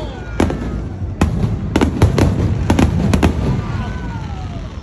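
Fireworks display: a quick series of sharp firework bangs, about eight in under three seconds, then dying away.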